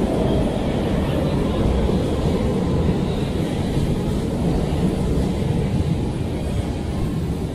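Brussels Metro train pulling into an underground station, a steady low rumble of its steel wheels and running gear as it slows along the platform.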